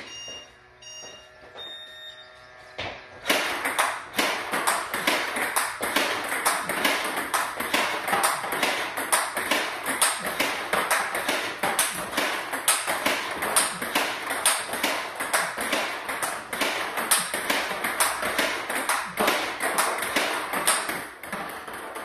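Rapid, steady run of table tennis ball strikes starting about three seconds in: a DHS Hurricane 2 Neo rubber on the forehand bat hitting ball after ball in forehand drives, with bounces on the table in between. The bat gives a very loud click, put down to the hardness of the rubber. A few short beeps come before the hitting starts.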